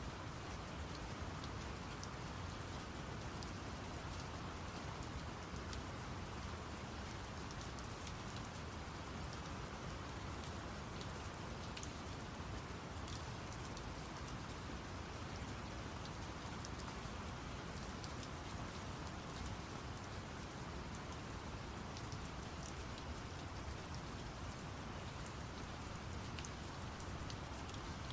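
Steady rain falling, with many small drop ticks scattered through it, layered over a constant deep brown-noise rush.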